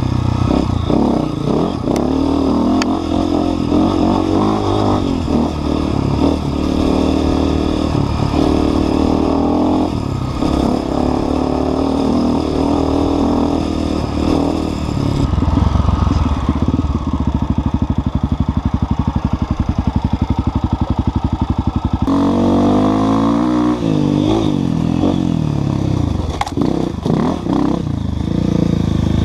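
Enduro dirt bike engine running under the rider, revving up and down. It holds a steady, evenly pulsing note for several seconds about halfway through, then rises and falls in revs near the end.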